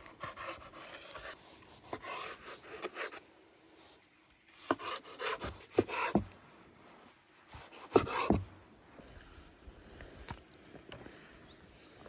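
Chef's knife slicing through raw beef liver on a wooden cutting board: soft wet cutting noises, then several sharp knocks as the blade meets the board, the strongest about two-thirds of the way through.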